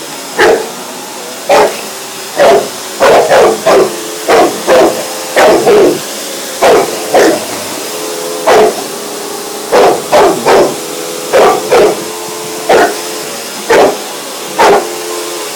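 A bullmastiff giving big barks over and over, about one or two a second in short runs, at a vacuum cleaner running steadily underneath.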